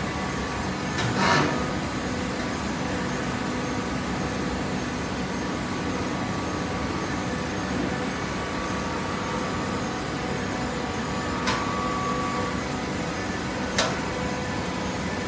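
Horizontal cardboard baler and its infeed conveyor running: a steady machine hum and hiss with a louder rush about a second in and two sharp clicks near the end.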